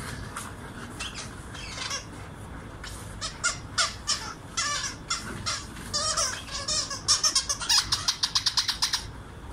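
Rubber squeaky dog toy squeaked over and over as the dog chomps on it, scattered squeaks at first, then a fast run of about five or six a second near the end.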